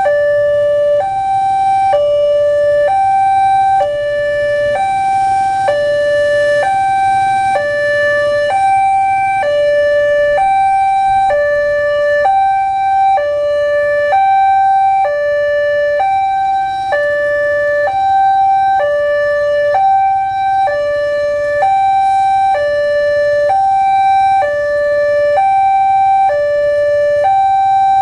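Railway level-crossing warning alarm sounding continuously: two electronic tones, one high and one low, alternating in even half-second beeps. It signals that the crossing is closed with the barriers down for an approaching train.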